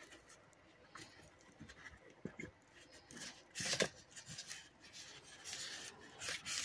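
Handling noise from a phone being moved about in the hand: irregular rubbing and scraping with a few clicks, the loudest scrape a little over three and a half seconds in.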